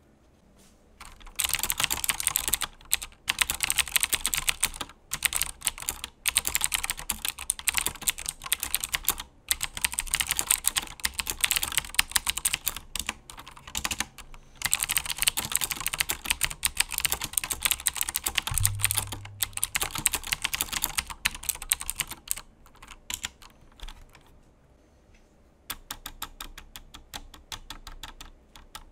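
Fast typing in bursts on a CoolerMaster Quickfire TK mechanical keyboard with clicky Cherry MX Green switches, with one short low thump partway through. Near the end a single key is pressed over and over, about four or five clicks a second.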